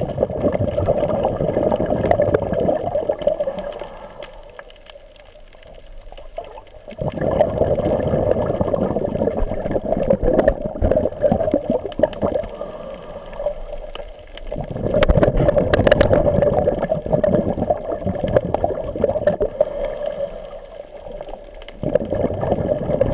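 Bubbling and gurgling water heard underwater, coming in surges about every seven to eight seconds with quieter stretches between.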